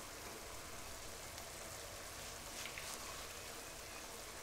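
Chicken strips and vegetables simmering in white cooking wine in a deep pan on a gas burner: a steady, soft sizzling hiss.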